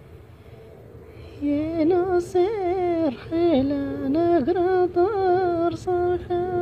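A solo voice, most likely a woman's, sings or hums a melismatic Amazigh-style melody. It starts about a second and a half in after a quiet stretch, bends and slides between notes, and settles on a long held note near the end.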